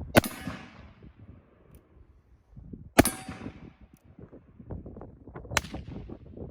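Three black-powder shots from an Uberti Colt 1851 Navy .36 caliber cap-and-ball revolver, about two and a half seconds apart, each a sharp crack with a ringing tail.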